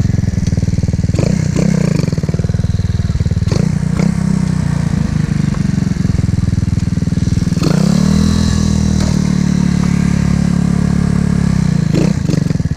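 Small single-rider motorcycle engine running in first gear, revving up sharply about eight seconds in and held high for several seconds before dropping off near the end: the rider is giving it throttle to lift the front wheel for a wheelie. A few brief clattering knocks in the first few seconds.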